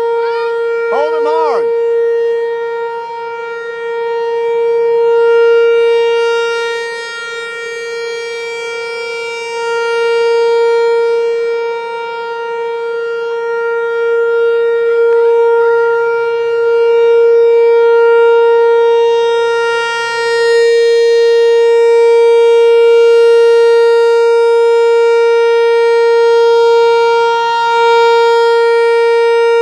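Outdoor civil defense warning siren sounding its monthly test: one steady, unwavering tone, slowly swelling and fading in loudness.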